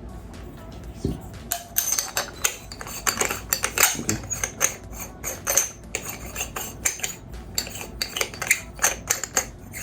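Small metal airsoft parts, a brass mock silencer and a tracer unit, clinking and tapping together as they are handled and fitted. A light knock about a second in, then a quick, irregular run of sharp clinks and rattles.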